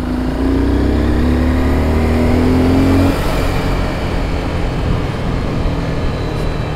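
Honda CBR250R's single-cylinder engine pulling under throttle, its pitch rising slowly for about three seconds, then the throttle closes and it settles to a lower, steady run under the rush of wind.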